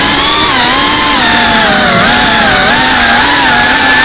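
GEPRC Cinelog 35 FPV cinewhoop's brushless motors and ducted 3.5-inch propellers whining loudly, the pitch rising and falling continuously with the throttle as the drone manoeuvres.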